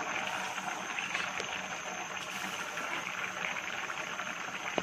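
Thick bean-seed and dried-fish curry bubbling in a steel pot: a steady stream of small plops and crackles as it simmers.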